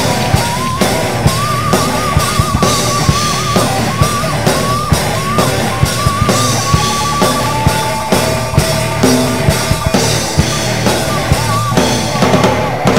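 Rock music: a drum kit beating a busy, steady rhythm under electric guitar, with a high wavering melody line held over it for most of the passage.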